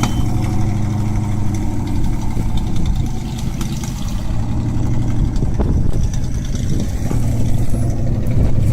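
An engine running steadily under light load, its level dipping slightly about three seconds in, with a few sharp knocks near the end.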